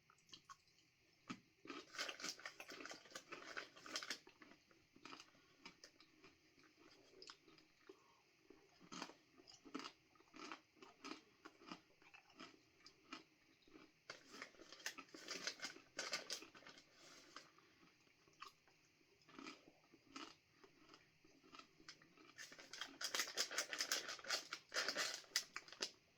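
A person crunching and chewing dried banana chips, in several short spells of crackling bites with quieter gaps between; the longest and loudest spell comes near the end.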